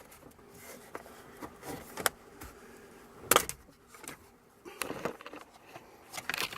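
Plastic steering column shroud of a Jeep Wrangler JK being worked apart by hand: scattered clicks, creaks and small knocks of the trim halves, with one sharp snap about three seconds in.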